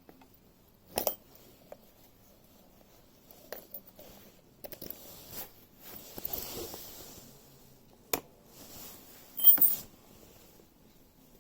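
Handling noise: scattered sharp clicks and knocks with some rustling between them, the loudest knock near the end.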